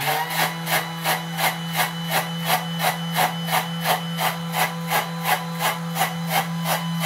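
Thermomix food processor running to froth a martini: a steady motor hum with an even knocking about three times a second.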